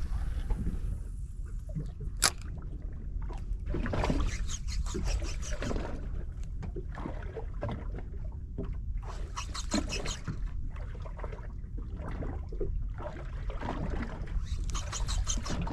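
Fishing reel being wound in three short spells of rapid, even ticking, with a couple of sharp clicks in the first few seconds. Underneath is a steady low rumble of wind and water around the small boat.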